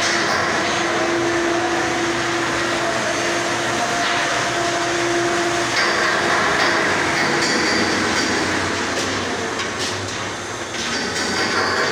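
Loud, steady industrial machinery noise with a constant droning hum under a broad hiss; about six seconds in the hum fades and a higher whine comes in, growing stronger near the end.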